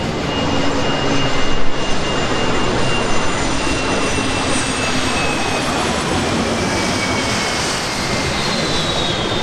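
Jet airliner engines roaring steadily, with high whining tones that slowly fall in pitch as the aircraft moves past.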